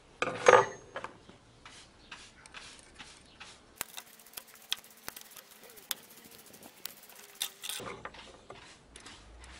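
Small irregular metallic clicks and ticks from a lever-type valve spring compressor being worked on a 1.4-litre Renault Logan cylinder head, pressing down a valve spring to free the valve collets. One louder short sound about half a second in.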